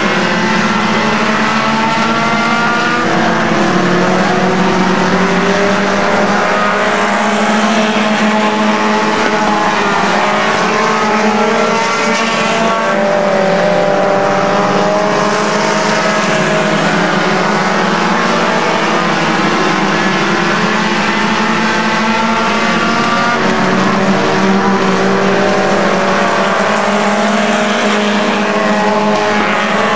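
Several front-wheel-drive Stinger-class stock cars racing on a dirt oval, their engines overlapping and rising and falling in pitch as they go through the turns.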